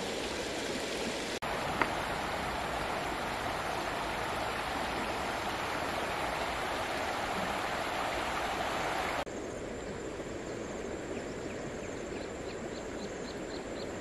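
Steady rushing of a stream flowing over stones. It turns quieter after an abrupt cut about nine seconds in, and near the end a faint high chirp repeats about four times a second.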